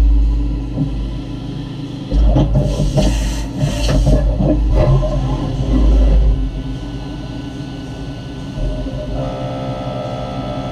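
Okuma M560-V CNC vertical mill machining a 7075 aluminium part, the end mill throwing chips: a steady low rumble with a burst of hissing about two and a half seconds in, and a steadier tone setting in near the end.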